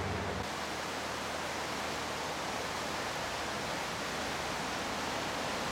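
A river cruise ship's low engine hum cuts off about half a second in, giving way to a steady, even rushing noise of the fast-flowing floodwater of the Danube.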